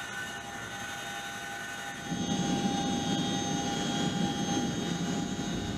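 CH-47 Chinook twin-rotor helicopter running: a steady high turbine whine, joined about two seconds in by a louder low rushing rumble of the rotors and engines.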